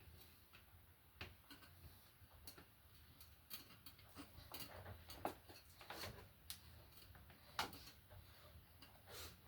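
Faint, irregular clicks and light taps, more frequent in the second half, over a faint steady low hum.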